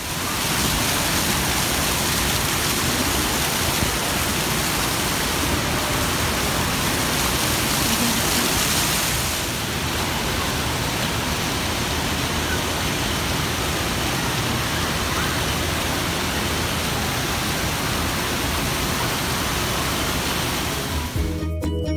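Fountain jets and falling water spraying and splashing steadily, a dense, even rush of water noise. The sound drops slightly about nine seconds in, and music comes in near the end.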